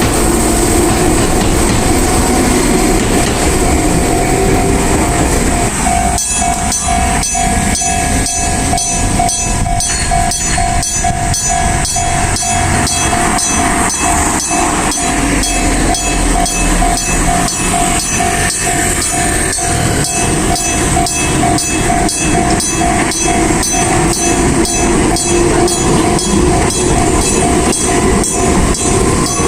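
Enoshima Electric Railway (Enoden) train running through a level crossing while the crossing's warning bell rings in a steady, evenly repeating rhythm. The bell stands out more clearly from about six seconds in.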